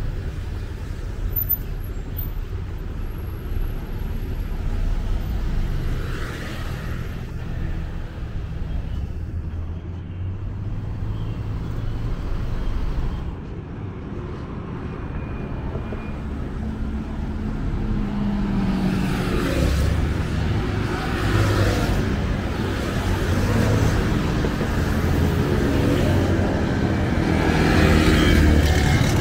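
Road traffic on a busy city street passing close by: cars and motorbikes running as a steady rumble. It grows louder in the last third as a bunch of vehicles, motorbikes among them, pulls past.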